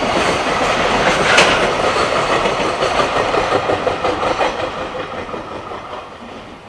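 Container wagons of a JR Freight train passing, steel wheels rattling over the rails, with one sharp click about a second and a half in. The sound fades away over the last two seconds as the end of the train goes by.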